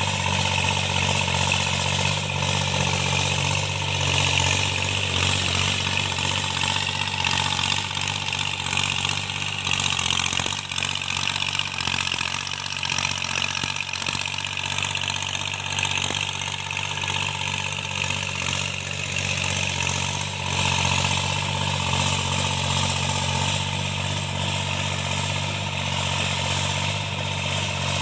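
Tractor engine running steadily during cultivation, after a repair for engine knocking.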